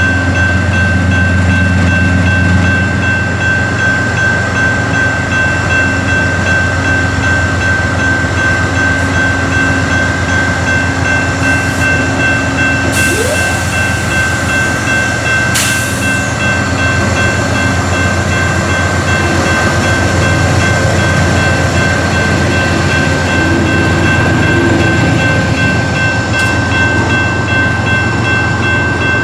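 Freight train running past, a steady rumble with a continuous high whine over it and a couple of brief hissing bursts about halfway through.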